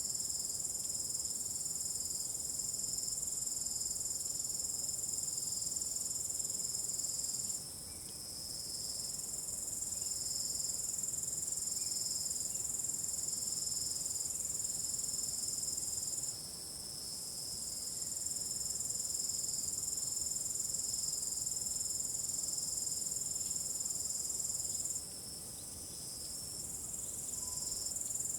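Crickets chirping in a night field: a steady high trill over a second, pulsing chirp a little lower. The high trill drops out briefly three times, about every nine seconds, and then swells back.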